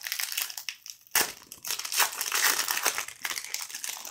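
Wrapper of a 2021-22 Upper Deck CHL hockey card pack crinkling as hands tear it open and pull it off the cards, with a sudden louder burst about a second in.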